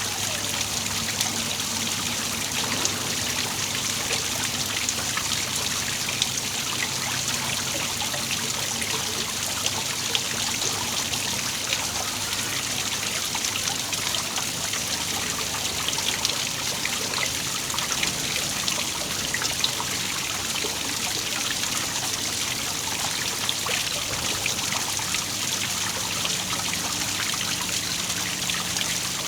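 Small waterfall: water falling and splashing steadily, a constant trickling rush with no change.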